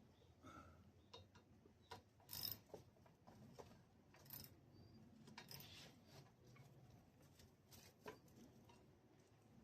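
Near silence broken by faint, scattered small clicks and taps from hand work on a lawn mower engine's parts.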